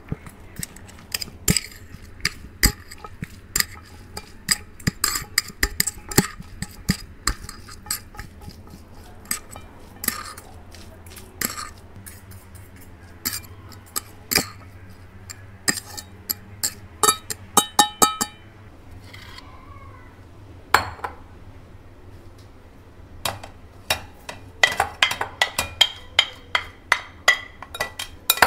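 Metal forks clinking and scraping against a ceramic plate as dry noodles are tossed and mixed, in quick irregular taps. After a short lull about two-thirds through, a fast run of clinks comes as the noodles are scraped off the plate into a bowl.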